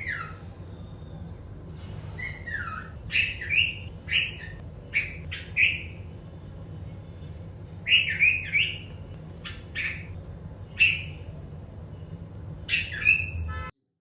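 Bulbul giving short, bright chirping calls in clusters of two to four, with pauses between, over a steady low hum. The sound cuts off suddenly near the end.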